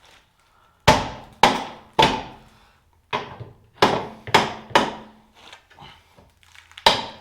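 About eight hard hammer blows on the car's suspension hardware, each a sharp strike with a short ringing tail: three about half a second apart, a pause, four in quicker succession, then a last one near the end.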